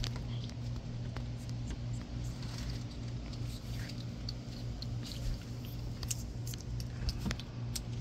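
Steady low machine-like hum with scattered faint light clicks and ticks over it.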